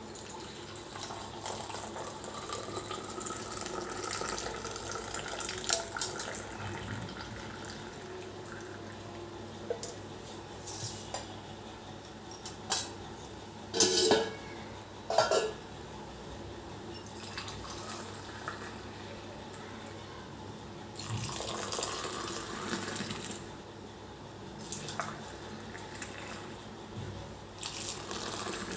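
Freshly boiled tea being poured into a cup, the pitch of the pour rising as the cup fills. Two sharp clinks of metal pots or utensils come about halfway through, and another pour follows later.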